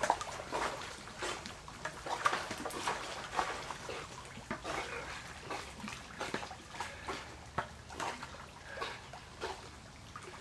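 A Labrador swimming in a pool: irregular small splashes and water lapping, with the dog's breathing.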